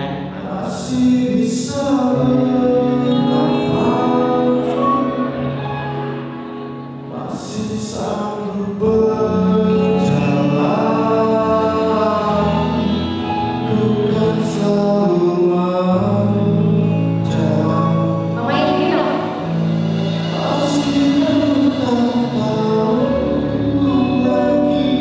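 Two men singing a song together into handheld microphones over music, with long held bass notes under the voices; near the end one voice carries on alone.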